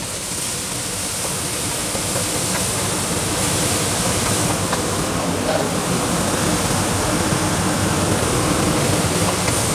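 Onion-and-spice masala sizzling steadily in hot oil in a nonstick wok, just after a little water has gone in, while a wooden spoon stirs it. The sizzle starts suddenly at the outset.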